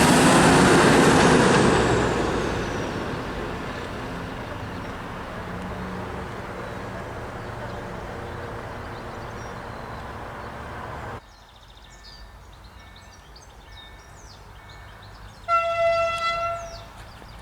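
A train passing close by, its rumble fading as it moves away and leaving a low hum. Then, against birdsong, a train horn sounds one steady blast of just over a second near the end.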